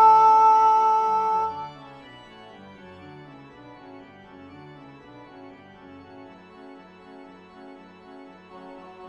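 Organ music: a loud held chord for about the first second and a half, then a sudden drop to a quieter passage of quickly moving notes in a steady rhythm.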